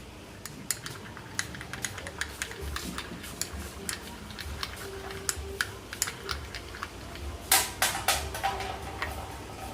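Homemade glue slime being squeezed and worked by hand, giving rapid, irregular clicks and small pops, with a louder flurry of clicks near the end.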